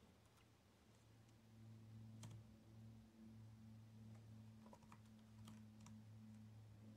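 Near silence: a few faint keystrokes on a laptop keyboard over a low steady hum.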